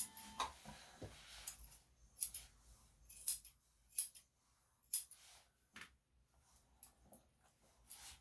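Grooming scissors snipping the hair on a Yorkshire Terrier's feet: a series of short, sharp snips at an irregular pace.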